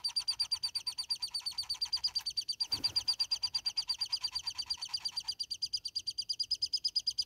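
Insects trilling in a high, steady, rapid pulse, about ten pulses a second. A lower pulsing layer joins in and stops about five seconds in, and there is one brief low thump a little before the middle.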